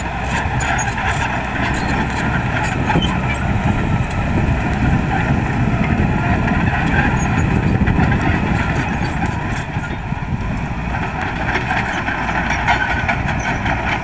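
Komatsu D85 crawler bulldozer's diesel engine running steadily under load as the dozer pushes brush and soil with its blade, a little louder around the middle.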